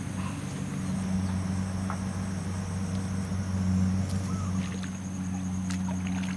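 A steady low hum with a constant high-pitched whine above it, and a few faint clicks in the second half.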